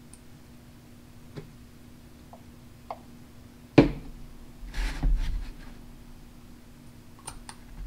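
Handling noise from assembling an RC beadlock wheel: a few small clicks of tiny screws and a hex driver, one sharp knock a little before the middle, a short rustle right after, and two more light clicks near the end.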